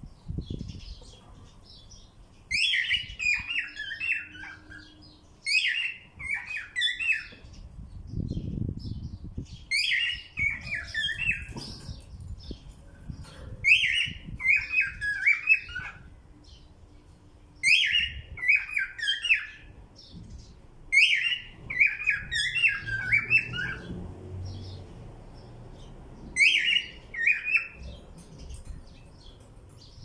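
Cockatiel singing: a short warbling phrase of quick chirps and whistles, repeated about seven times with a few seconds' pause between phrases.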